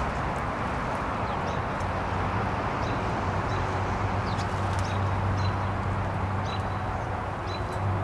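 Small songbirds at a seed feeder giving short, high chirps, repeated every half second to a second, over a steady background noise. A low steady hum joins about two seconds in.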